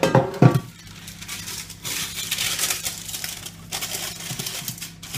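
Greaseproof paper rustling and crinkling as it is pulled out and handled, after a couple of knocks from kitchen things being set down at the start.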